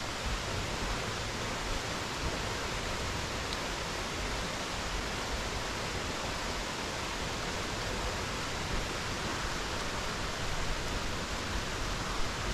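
Steady rushing of a waterfall, an even hiss of falling water that does not change.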